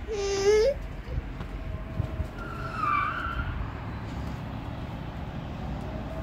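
Distant street traffic, a steady low rumble of passing cars with a brief high squeal about three seconds in. A child's high-pitched voice calls out briefly at the start.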